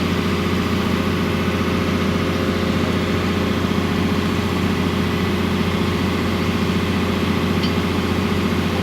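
Heavy machine's engine running steadily at a low, even speed.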